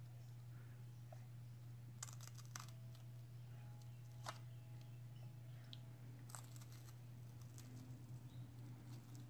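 A baby gnawing and munching on a Happy Baby Gentle Teething Wafer: faint soft crunches and mouth clicks, a few sharper ones about two, four and six seconds in, over a steady low hum.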